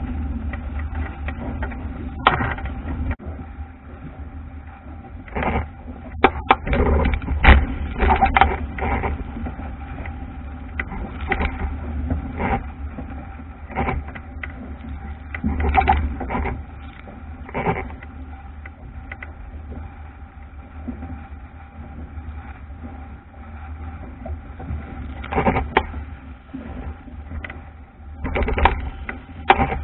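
Wind buffeting the microphone of a camera mounted on a wooden Albacore sailing dinghy, while the hull slaps through choppy waves and spray strikes the boat in irregular splashes and knocks.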